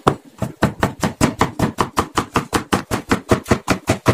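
Kitchen knife chopping cucumber on a plastic cutting board: a fast, steady run of cuts, about seven a second, each one a tap of the blade through the slice onto the board. The chopping stops just at the end.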